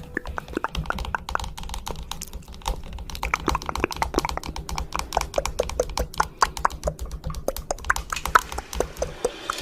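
A fast, irregular run of sharp clicks and taps, several a second, over a faint low hum.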